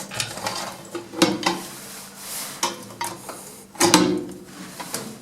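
Lift car and door machinery clunking and rattling as the car stops at the floor before its doors open: a series of sharp metallic knocks and clicks, about seven, a few with a short ring.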